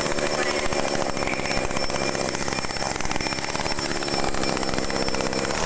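Small 33 cc two-stroke chainsaw engine running steadily.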